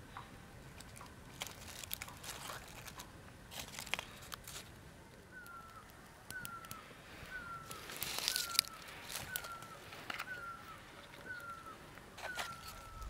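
A small campfire of dry leaves and twigs crackling with sharp irregular pops and a short hissy flare about eight seconds in. From about five seconds in, a koel calls over it, a short falling whistled note repeated about once a second.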